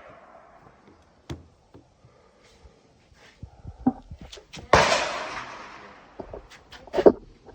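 Smith & Wesson Model 41 .22 Long Rifle semi-automatic pistol firing: two sharp shots a little over two seconds apart, the first with a long echoing tail. A few faint clicks come before the shots.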